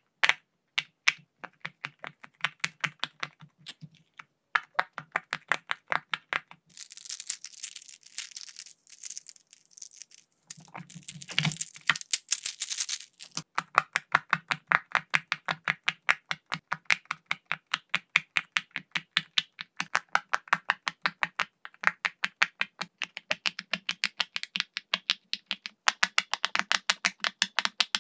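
Silicone pop-it fidget toy bubbles being pressed one after another, a quick even run of small pops at about four a second. About seven seconds in the pops give way to a few seconds of scratchy rubbing and crackling before the popping resumes.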